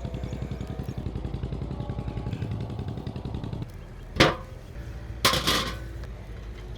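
A low, fast pulsing rumble that stops about three and a half seconds in, followed by two sharp clattering knocks about a second apart.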